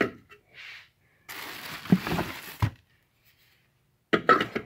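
Plastic packaging rustling with a few sharp knocks as silver Dodge Ram center caps are handled, then a short clatter near the end as a cap is picked up or set down.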